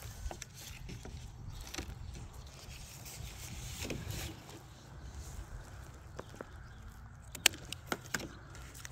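Handling noise of black plastic drip tubing being gripped and pulled over wood-chip mulch: light rustling and scraping, with a few sharp clicks near the end.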